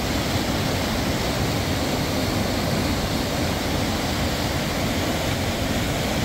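Steady, loud rushing noise with no pitch, even from low to high.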